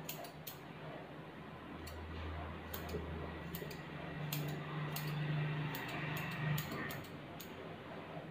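Steel grooming scissors snipping a puppy's head and ear fur: about fifteen crisp snips in irregular clusters, over a low steady hum.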